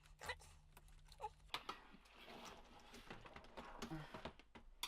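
Light plastic clicks and taps of a laptop's case parts and keyboard deck being handled and pressed together during reassembly.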